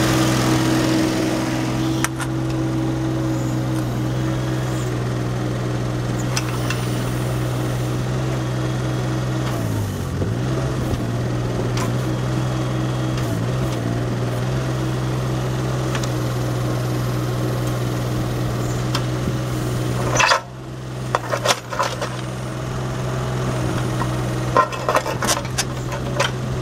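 Caterpillar 301.5 mini excavator's diesel engine running steadily while its hydraulics work the boom and bucket. The engine pitch sags twice under hydraulic load about a third of the way in. Near the end come several sharp knocks as the arm and bucket move.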